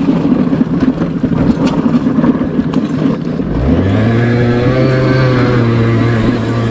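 50 cc Vespa scooter engine running rough at low throttle, with a few knocks as it rides over a dirt trail. About three and a half seconds in it revs up in a rising whine and holds high revs.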